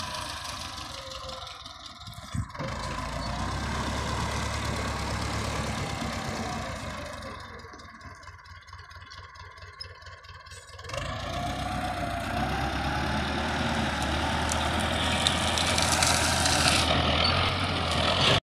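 Diesel engine of a Russian-built tractor fitted with a front dozer blade, running steadily as it works through brush. It drops quieter for about three seconds halfway through, then comes back up and cuts off suddenly at the end.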